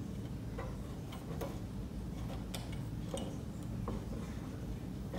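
A ring light tripod stand's leg joints and tube sections clicking and knocking irregularly, several light clicks a second or so apart, as the stand is unfolded and extended by hand.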